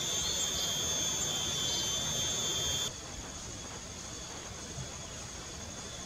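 A steady high-pitched whine over a broad hiss, with a few faint high chirps in the first two seconds. The whine cuts off abruptly about three seconds in, leaving a quieter, even hiss.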